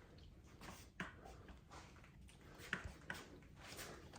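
Near silence with a few faint clicks and taps: one about a second in and two close together near three seconds in.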